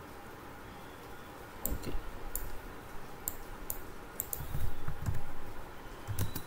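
Computer mouse clicks and keyboard keystrokes: scattered sharp clicks, with a few low dull thumps about two-thirds of the way through.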